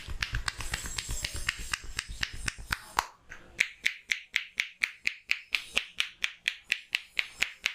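Percussive head-massage tapping by a barber's hands: busy rubbing and uneven slaps at first, settling about halfway in into a steady, rapid beat of crisp claps, about four to five a second.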